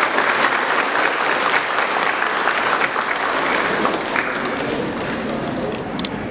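A large group of people applauding, many hands clapping at once, thinning out a little after about four seconds.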